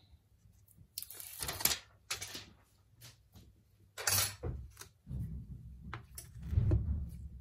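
Hands handling a smartphone and small tools on a workbench: a few short scrapes and clicks, the longest about a second in and another near four seconds, then low rubbing handling noise.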